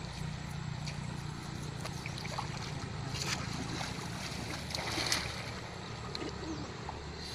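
Water splashing and dripping as a wet cast net is hauled up out of shallow river water, with a couple of louder splashes about three and five seconds in, over a steady low hum.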